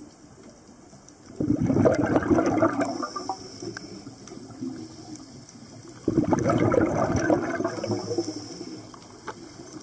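A scuba diver's exhaled breath bubbling out of the regulator underwater: two gurgling bursts of bubbles about four and a half seconds apart, each starting suddenly and fading over a second or two.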